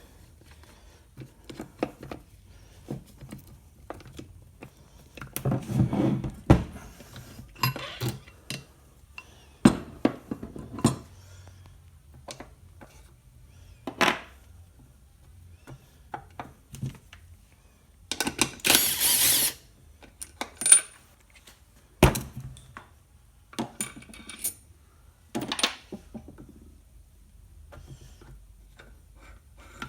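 Metal transfer case parts clinking, knocking and sliding against each other as they are handled and taken apart, in scattered separate clicks and clunks, with a louder scraping rush lasting about a second about two-thirds of the way through.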